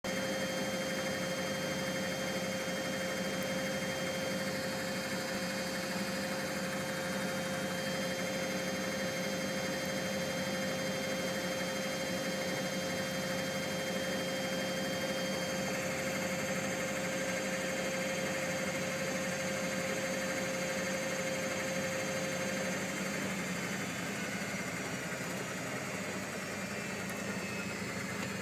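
Miele W562 front-loading washing machine spinning steadily during the cottons programme's interim spin: a constant motor and drum hum with a steady whine. Part of the whine stops about halfway, and the sound eases slightly near the end.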